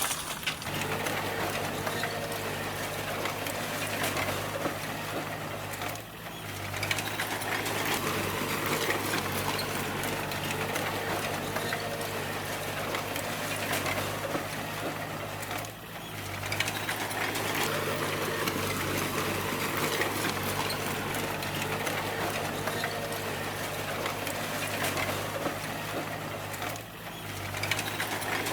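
D20 bulldozer's diesel engine running steadily, with a rapid mechanical clatter over the engine drone. The sound dips briefly three times.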